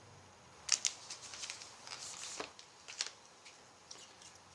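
Trading cards being handled and flicked through by hand: a few sharp snaps of card stock with a short rustle in between.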